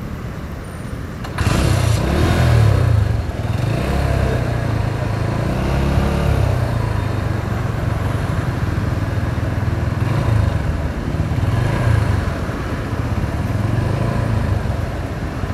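Motorcycle engine running on the move, with road noise. It gets suddenly louder about a second in, and the engine pitch rises and falls for the next few seconds as the throttle changes.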